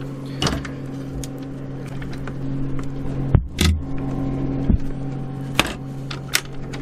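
A sailboat's anchor-locker deck hatch being handled: several sharp clicks and knocks from the lid and its metal latch, the loudest a thud a little past three seconds in. A steady low mechanical hum runs underneath.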